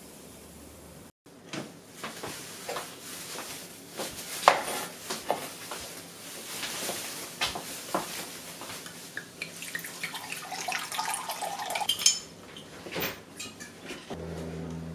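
Kitchenware being handled: a run of knocks and clinks as a glass measuring jug, bowls and a kitchen scale are set down and moved on a wooden chopping board and stone worktop, with water filling the jug for a few seconds late on.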